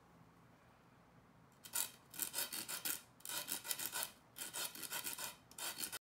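Abrasive of a BillKing CACO tip tool rasping against a leather pool-cue tip as the shaft is twisted in it, in four runs of quick scraping strokes starting about a second and a half in. The sound cuts off suddenly near the end.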